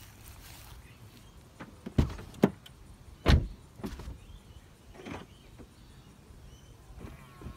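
Several sharp clicks and clunks from the driver's door of a BMW 428i coupe as a hand works the door handle and its locks, the loudest about three seconds in.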